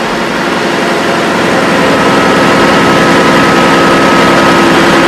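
The Honey Bee tractor's V12 Cummins diesel idling steadily just after being air-started, with a thin steady whine joining about two seconds in.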